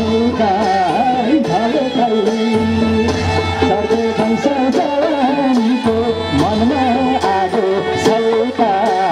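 Live Nepali panche baja–style folk music for dancing: a wavering lead melody over a steady hand-drum beat.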